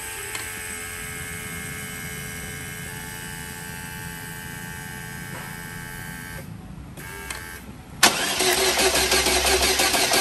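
Holden Cruze 1.8-litre F18D4 four-cylinder engine cranked over on the starter motor without firing, because the ignition coils are unplugged, to build oil pressure. A steady first run of cranking stops after about six seconds, and a second, much louder run starts suddenly about eight seconds in.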